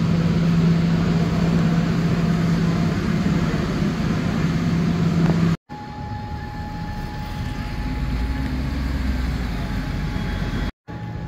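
Steady vehicle running noise with a low hum, broken off abruptly twice, about halfway and near the end; after the first break the hum is gone and a faint high tone runs through the noise.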